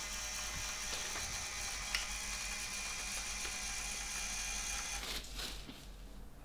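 Small electric motor of a homemade robot cart running steadily as it drives along a wooden rail, then cutting off about five seconds in.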